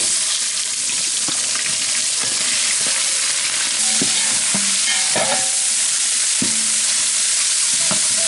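Sliced onions frying in hot oil in a large metal pot: a steady, loud sizzling hiss, with a metal ladle stirring through them and knocking against the side of the pot now and then, more often in the second half.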